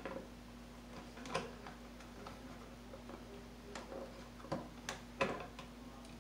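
Scattered light clicks and taps of stiff electrical cable being handled and worked into a plastic electrical box, about seven clicks at uneven intervals, over a faint steady hum.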